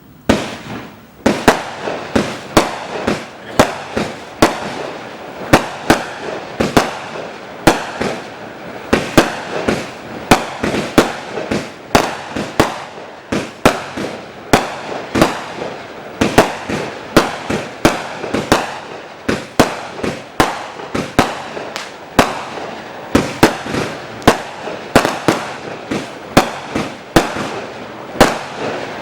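A 0.8-inch, 256-shot compound fireworks cake firing in a rapid string. Sharp shots and bursts come about two a second, with crackling between them, starting suddenly just as it begins.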